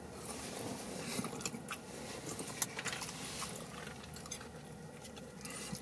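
Person chewing a mouthful of fried fish sandwich, with scattered light clicks.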